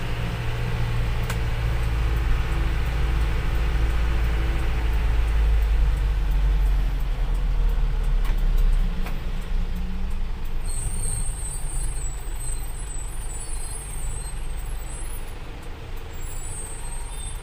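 Diesel engine of an Isuzu Elf Giga minibus running under way, heard from inside the cab; its low drone grows louder over the first half and then eases off. In the last third a high chirping joins in.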